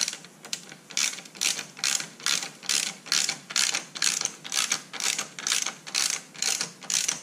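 Hand ratchet wrench with an 8 mm socket working a bolt in quick strokes, each swing of the handle giving a short burst of pawl clicks, about two a second; it stops just before the end.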